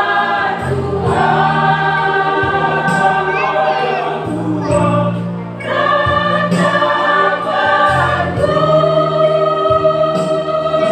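Church choir singing a gospel hymn of praise, holding long sustained chords in phrases with brief breaks between them.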